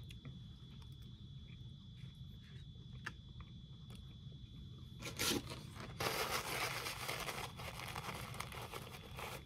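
Faint small clicks, then from about five seconds in a paper napkin crinkling and rustling loudly for several seconds as it is handled and crumpled.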